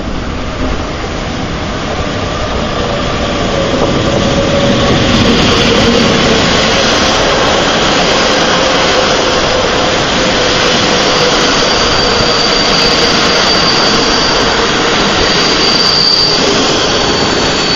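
EU07 electric locomotive and its passenger coaches rolling past at close range as the train comes into the station: a loud, steady rumble of wheels on rail that builds over the first few seconds. A thin high-pitched squeal from the running gear sets in about halfway through as the train slows.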